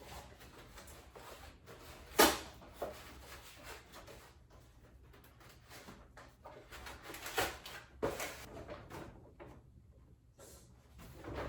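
Household handling noises in a small room: a sharp knock about two seconds in, then a few lighter knocks and clatters with rustling between them, like drawers or objects being moved and set down.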